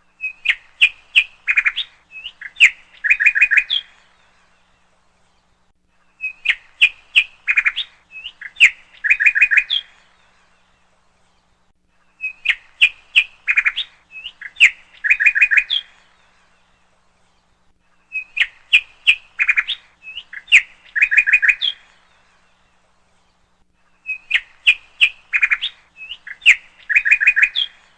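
Bird song: a phrase of quick chirps and trills lasting about four seconds, repeated five times about every six seconds, the same each time, with short pauses between.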